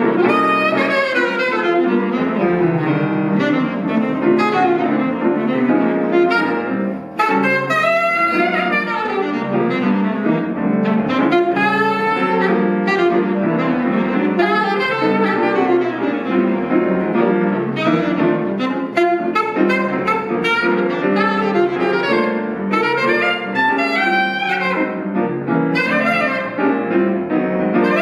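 Jazz alto saxophone playing fast, running melodic lines over piano accompaniment, briefly dropping out about seven seconds in.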